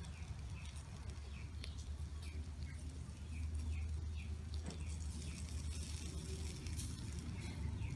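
A small bird chirping over and over, about two short high chirps a second, above a steady low rumble. A few sharp clicks come in between as metal tongs turn skewers on a wire grill.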